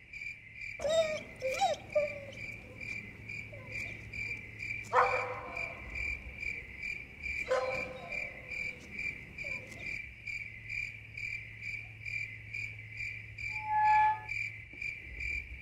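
Crickets chirping in a steady, even pulse, several chirps a second. A few short, sharper sounds cut in about one, five and seven and a half seconds in, and there is a brief squeak near the end.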